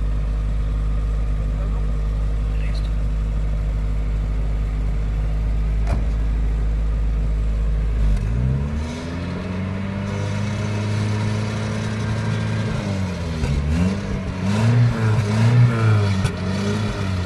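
Exhaust of a 1989 Hindustan Contessa's 1.8-litre four-cylinder Isuzu petrol engine idling steadily. About halfway through it is revved up and held. Near the end it is blipped several times in quick succession.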